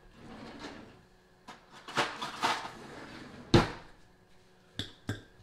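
Knocks and rustles of things being handled at a kitchen counter, the loudest a sharp knock about three and a half seconds in, with a couple of small clicks near the end.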